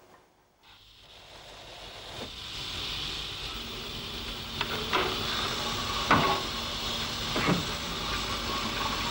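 Steam locomotive blowing off steam: a hiss that builds up about a second in and then holds steady. Several sharp knocks come at uneven spacing over it, and a low steady hum joins partway through.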